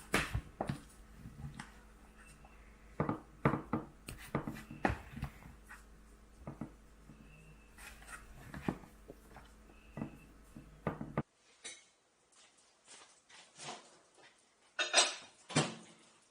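Scattered clinks and knocks of dog food bowls and utensils being handled.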